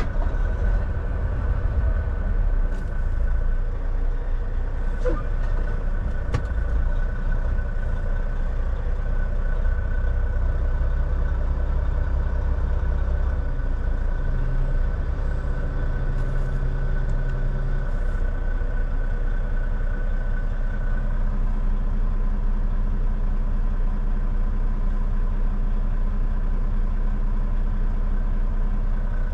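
Volvo semi truck's diesel engine running steadily with a low drone. A steady high whine stops about 21 seconds in, and a few light ticks come in the first several seconds.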